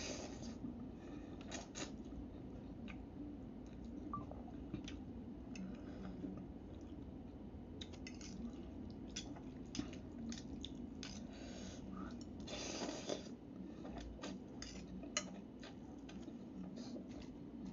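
Someone eating instant noodles with a metal fork from a ceramic bowl: a slurp of noodles at the start and another about twelve seconds in, with scattered light clicks of the fork against the bowl and quiet mouth sounds between.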